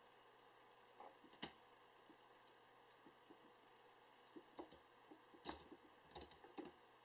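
Faint, scattered clicks and light taps of small plastic and metal parts as an Esky Belt CPX RC helicopter's main shaft is fitted into its frame. The sharpest clicks come about a second and a half in and again about five and a half seconds in.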